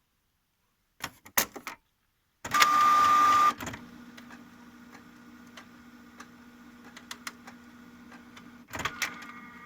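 Canon MG5750 inkjet printer's paper-feed mechanism running: a few clicks, a loud whirr of about a second with a whine, then a steady low motor hum with faint ticks, and more clicking and whirring near the end. This is a paper-feed attempt in which the printer fails to register the sheet, which the owner blames on creases in the paper.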